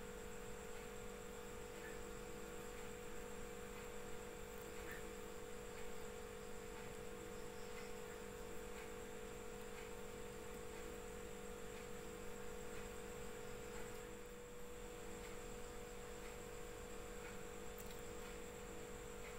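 Faint, steady electrical hum held at a few constant pitches, with a few very faint ticks.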